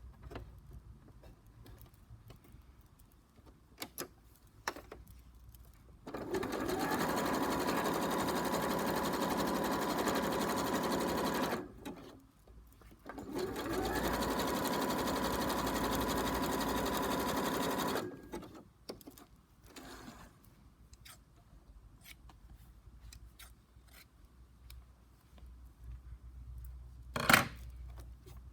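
Sewing machine stitching appliqué pieces onto fabric, in two steady runs of about five seconds each with a short pause between them. Small handling clicks fill the rest, with one sharp click near the end.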